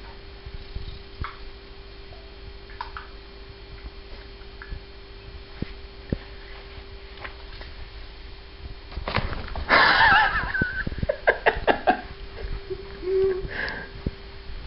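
A cat picking at a paper towel roll, with faint scattered rustles and clicks over a steady low hum. About nine seconds in comes a loud burst of noise with a wavering pitch, lasting a second or two, followed by several sharp knocks.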